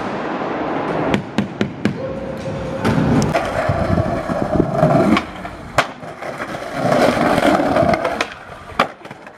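Skateboards rolling and scraping over concrete and wooden ramps, with repeated sharp clacks of the boards popping and landing.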